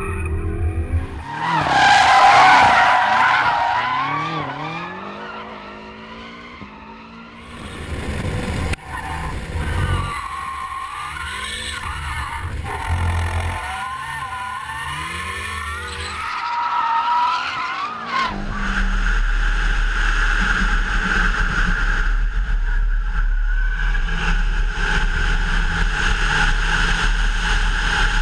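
BMW M6 Gran Coupé's twin-turbo V8 revving up and down while its tyres squeal through drifts. About two-thirds of the way in it settles into a steadier, even run with a constant low rumble.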